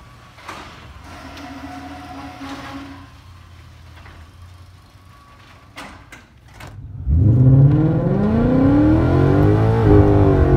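A low steady engine rumble, then about seven seconds in a Ford Mustang's V8 comes in loudly under hard acceleration, its pitch climbing and dropping back near the end as it shifts gear. It is heard from inside the cabin.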